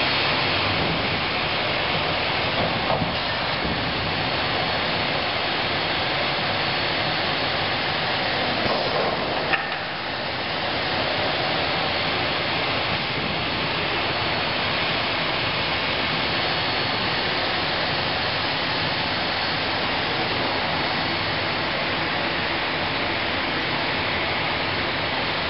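Steady running noise of woodworking production-line machinery, a moulding machine and its belt conveyors: a constant hiss-like rush with a faint high whine on top, dipping slightly about ten seconds in.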